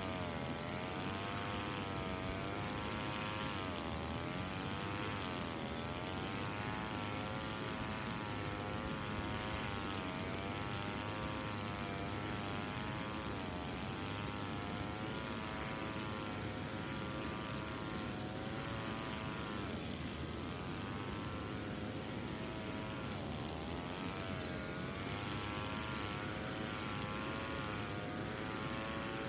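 Engine-driven brush cutter running at high revs, its pitch sagging briefly and recovering several times as the cutting head takes load.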